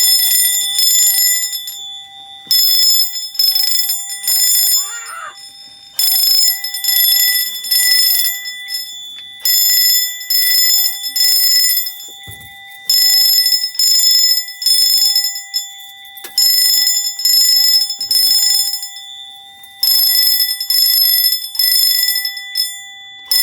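Fire alarm bells sounding in general alarm on a Mircom fire alarm panel, ringing loudly in repeated bursts of about two to three seconds with short breaks between them. A steady tone runs underneath.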